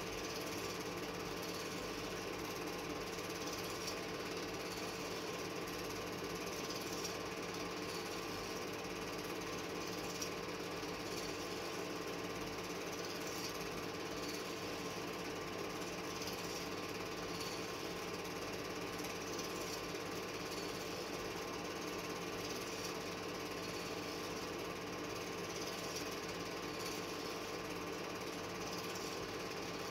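A home-movie film projector running, a steady rapid mechanical clatter with a constant motor hum.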